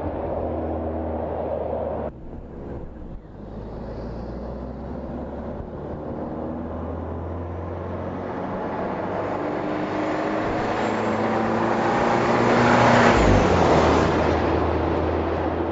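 Volkswagen Golf R Variant's 2.0 TSI turbocharged four-cylinder engine and exhaust, the car driving at speed with the engine note rising and falling. The sound drops out abruptly about two seconds in, then builds as the car approaches and passes close by, loudest about thirteen seconds in.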